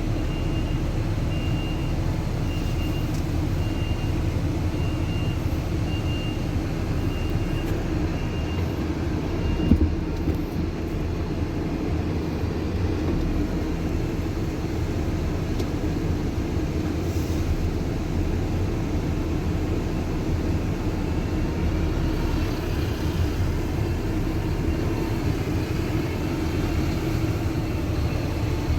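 Concrete mixer truck's diesel engine running steadily. Its reversing beeper sounds about once a second, stops roughly a third of the way in, and is followed by a single short thump.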